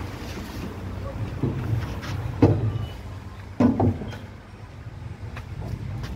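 Steady low machine hum in a hydraulic hose workshop, with a few sharp knocks as a thick rubber hydraulic hose is handled and pushed into the slot of a hose-cutting machine. The loudest knocks come about two and a half and three and a half seconds in.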